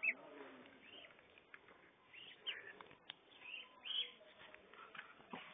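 A young duck peeping: short, high calls repeated about once a second, with a couple of faint clicks in between.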